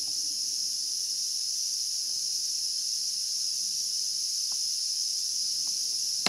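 The 80 W LED floodlight's driver giving off a steady high-pitched whine, its 'singing' unchanged throughout. The owner guesses the noisy driver is on its way out.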